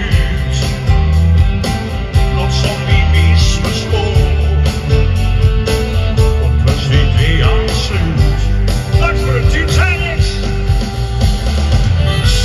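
Live band playing a song, with drums keeping a steady beat under electric guitar and keyboards.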